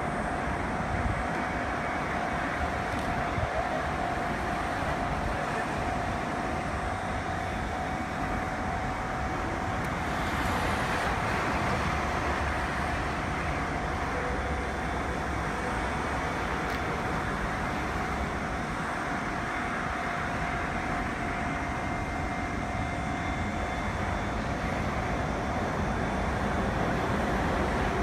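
Railroad-crossing warning bell at an Osaka Monorail track switch, which can ring while the switch is being worked, heard faintly as a steady tone over continuous road traffic noise.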